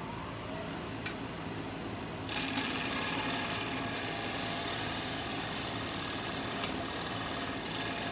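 Wood lathe running steadily with a natural-edge pear bowl spinning. About two seconds in, a bowl gouge meets the wood and a light, steady cutting hiss begins: a final finishing pass taken with almost no pressure to clean up tear-out at the bottom of the bowl.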